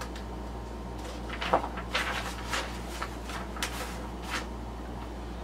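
A run of short rustles and light knocks as the paper assembly instructions are handled, the sharpest about a second and a half in, over a steady low hum.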